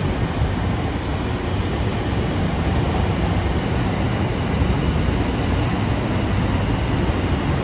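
JR Kyushu 787 series electric train running past, a steady rumble of wheels on rails.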